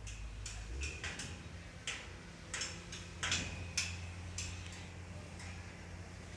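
A run of short, sharp clicks and ticks at irregular intervals, loudest a little past the middle, over a low steady hum.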